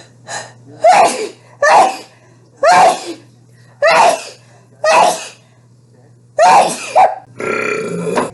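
A woman's short, explosive vocal bursts, seven of them about a second apart, the last two close together.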